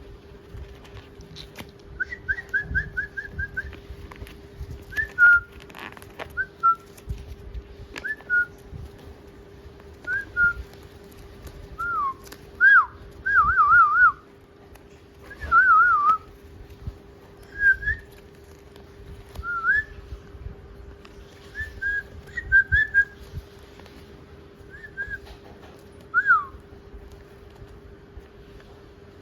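Pet parrot whistling in short phrases with pitch bends, including a quick run of repeated notes early on and some wavering, warbled notes, with soft knocks and rustles in between.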